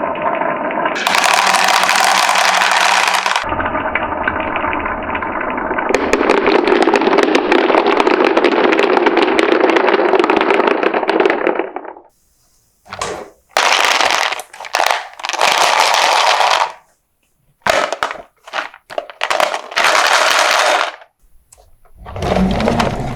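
Marbles rattling and clacking down a wooden marble run, a dense continuous clatter for about the first half, then short bursts of rattling broken by brief silences.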